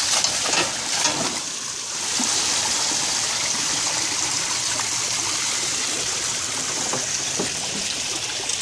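Splashing as a net-load of catfish is tipped into shallow water and the fish thrash free, then a steady rush of running water.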